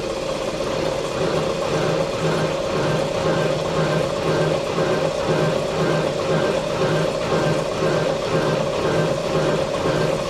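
1A616 lathe's spindle motor, driven directly by a frequency converter, running under heavy load while a tool cuts across a steel disc. A steady tone with a lower hum that swells and fades about one and a half times a second; the motor is straining hard under the cut.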